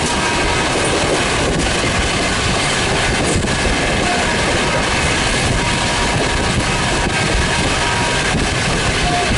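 Rajdhani Express passenger coaches rushing past at high speed without stopping: a loud, steady rush of wheel and wind noise with the clickety-clack of wheels over the rails.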